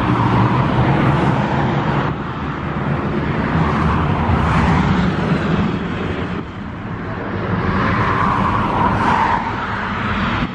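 Jet engines of a twin-engine narrow-body airliner on final approach to land, a steady rushing noise mixed with gusty wind on the microphone. The engine noise swells around a second in and again near the end.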